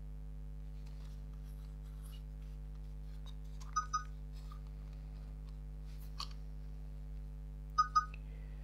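Canon Legria HF R806 camcorder beeping: two short double beeps about four seconds apart. The second pair comes as the camcorder flags that no memory card is fitted. A single click falls between them, over a steady low hum.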